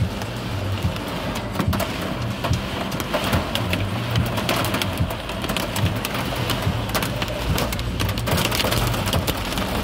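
Heavy rain pelting a car's roof and windshield, heard from inside the car as a dense, steady patter with many sharp individual hits, over a low hum.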